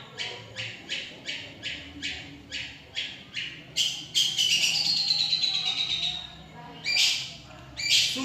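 Long-tailed shrike (cendet) singing: a run of short, evenly spaced high notes, about three a second, then a denser chattering phrase with a falling whistle, and two more loud calls near the end.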